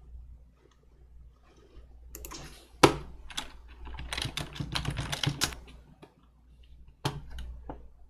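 Typing on a computer keyboard: a quick run of key clicks with one sharper, louder click about three seconds in, then a couple of single clicks near the end.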